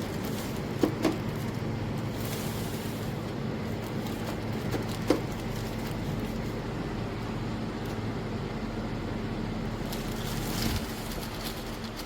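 Steady low mechanical hum under a haze of noise, with a few sharp knocks about a second in and again about five seconds in.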